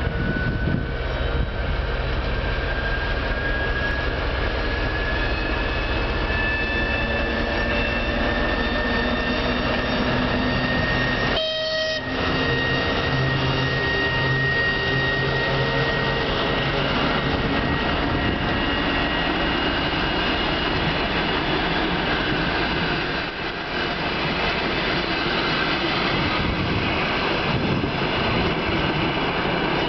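TEP70 diesel locomotive's 16-cylinder turbocharged diesel working hard as it accelerates with a passenger train, its whine rising slowly in pitch over the first dozen seconds as it approaches and passes. The passenger coaches then rumble past on the rails.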